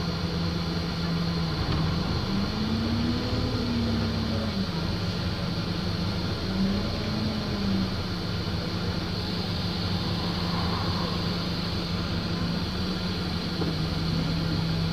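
Wright StreetLite bus engine running steadily, its pitch rising and falling back twice as it revs up, first about two seconds in and again around six and a half seconds in.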